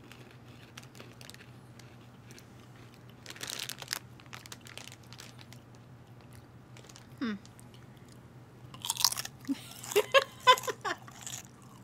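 Potato chips crunching as two people bite and chew them, in short crisp crackles. Near the end both break into laughter.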